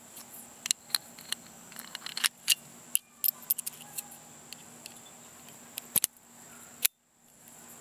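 Small steel parts of an H&R 922 .22 revolver clicking and rattling as the cylinder is fitted into the frame and the cylinder pin is slid in by hand. Irregular clicks throughout, the sharpest a single click just before the sound briefly cuts out near the end.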